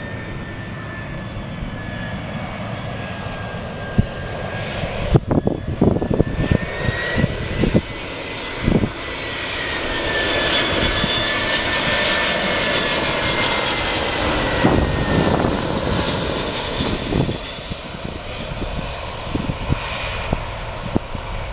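Airbus A320 jet engines on landing approach: a whining rumble swells as the airliner comes in low overhead, and its tones slide lower as it passes, then ease off. Wind gusts buffet the microphone.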